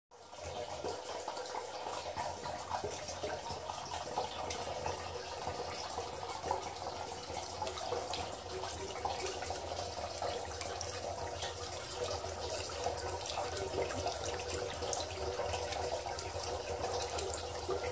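Two-tier zen-stones tabletop fountain running, water from its pump spilling over the stacked stones into the basin with a steady trickling and splashing over a low steady hum. The reservoir is only about a third full, just enough for the pump to reach, which makes it noisier than it will be when filled.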